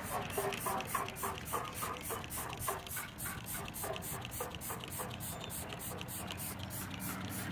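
Spray bottle spraying cleaner in quick, even pulses, about four a second, each a short hiss with a small mechanical squeak.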